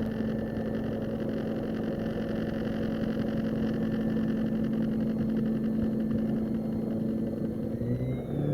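Stepper motors of a DIY aluminium-profile gantry running, giving a steady buzzing whine; near the end the pitch slides up and down as the motors change speed. The stepper drivers are ones the owner wants to replace because the machine shakes a lot.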